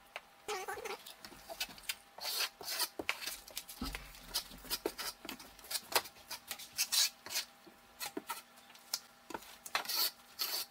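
Notched trowel scraping tile adhesive onto a wall and combing it into ridges: repeated, uneven scraping strokes.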